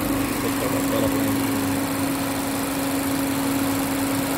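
Mazda 2 Skyactiv petrol four-cylinder engine running steadily at idle with the air conditioning on, heard at the open engine bay as an even hum with one constant tone.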